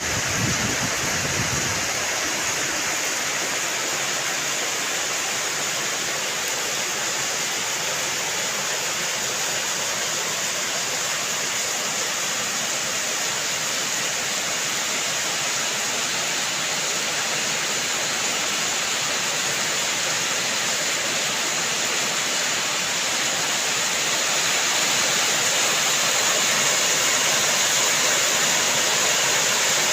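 Steady rushing water, a dense even hiss like heavy rain, growing slightly louder in the last few seconds.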